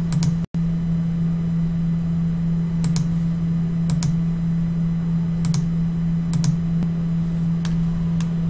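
About eight scattered single clicks of a computer mouse and keyboard, over a steady low electrical hum. The sound drops out completely for a moment about half a second in.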